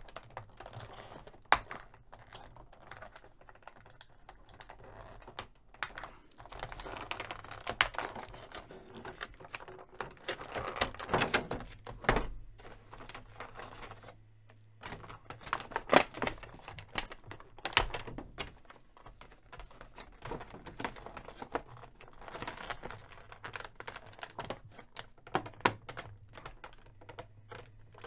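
Hands working an action figure free of its clear plastic blister tray: the plastic crinkles and clicks, with irregular sharp clicks and snaps throughout.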